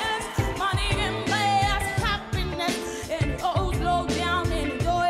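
A teenage girl singing a pop song with wavering held notes, backed by a live band with a steady drum beat.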